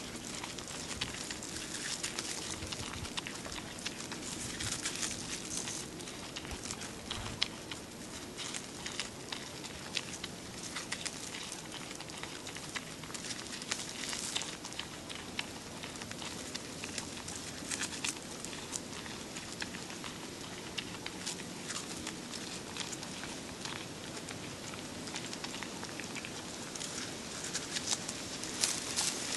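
Red panda chewing and crunching bamboo leaves up close, a steady run of short, crisp, irregular crackles, with the leafy stems rustling as it pulls them in.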